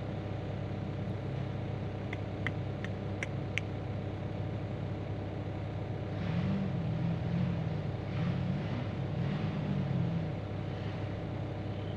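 Hyundai HX85A excavator's diesel engine running steadily, heard from inside the cab. A few light clicks come a couple of seconds in, and a low wavering sound rises and falls through the middle.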